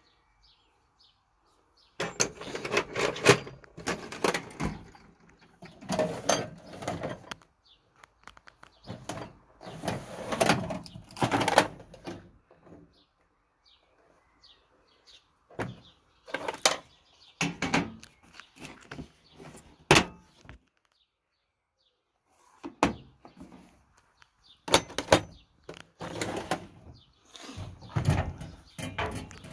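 Metal tool chest drawers and the hand tools inside them clattering and rattling as they are handled, in a series of bursts a second or two long with short quiet gaps between.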